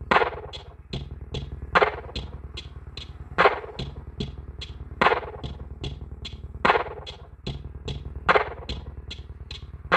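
Electronic bass-test music played loud through a JBL Boombox 3 with its grille off and its woofer exposed. A steady deep bass runs under a heavy drum hit about every second and a half, with lighter ticks in between.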